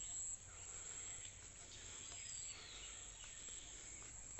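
Faint countryside ambience: a steady high-pitched insect drone, with one falling bird whistle about two seconds in.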